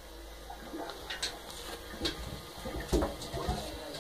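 A kitten's paws knocking and scraping on the hard surface of an empty bathtub as it gets up and moves about, a handful of separate light knocks from about a second in.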